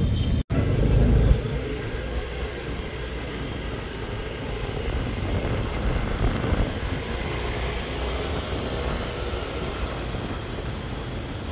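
City street ambience: a steady rumble of traffic with general outdoor city noise. There is a brief total dropout about half a second in.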